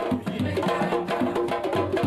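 Traditional West African dance music: drums and percussion playing a fast, dense rhythm, with sustained pitched notes over the beat.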